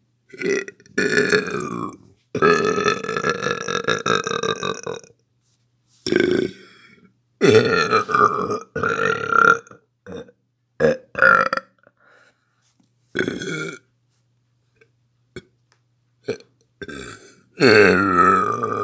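A person burping over and over: about a dozen separate burps, a few long and drawn out over two to three seconds, the rest short.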